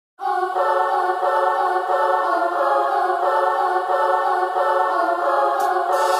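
Music: the intro of a song, a held chord of choir-like voices with no lyrics yet. Crisp high percussion ticks come in near the end.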